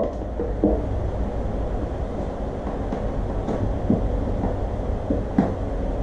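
A low steady rumble, with a few light clicks and taps scattered through it as hands work the screws along the top trim of a motorcycle's fiberglass batwing fairing.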